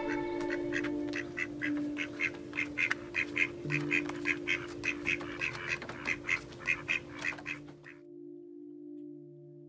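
Mallard quacking in a quick, even run of short calls, about three a second, stopping about eight seconds in, over soft sustained background music.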